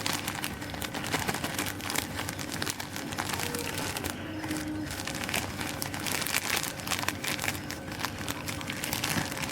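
Packing material being handled and crinkled by hand: a steady run of small crackles and clicks.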